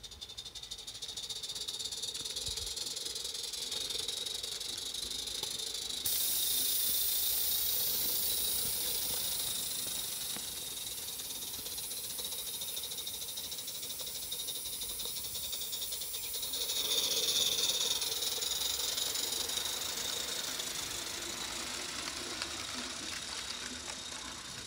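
Small coal-fired live-steam model locomotive running with a train of wagons: a steady hiss of steam over the light rattle of wheels on the track. The hiss gets louder about six seconds in and swells again about two-thirds of the way through.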